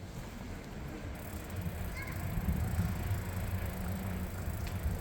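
Wind buffeting the microphone during a bicycle ride: a gusty low rumble that grows louder about halfway through.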